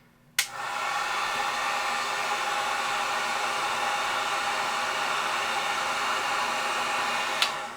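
Drill Master heat gun switched on with a click about half a second in, running steadily with a blower hiss and a faint motor whine, then clicked off near the end and winding down.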